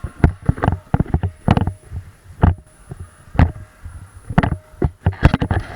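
Irregular sharp knocks and clicks, a strong one about once a second with smaller ones between.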